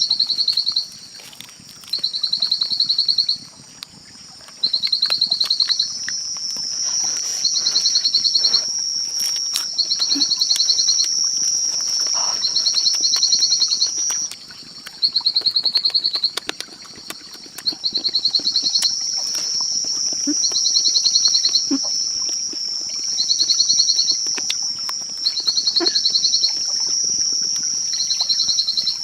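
Insects calling in a chorus: one repeats a high, rapidly pulsed trill about a second long roughly every two seconds, over a steady high-pitched drone from others, with a few faint clicks and rustles.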